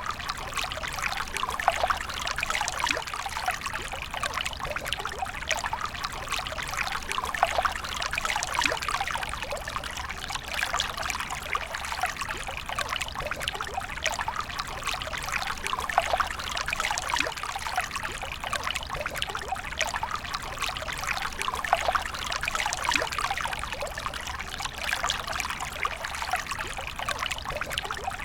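A steady stream of water pouring and trickling, a continuous splashing with many small droplet sounds and no pauses.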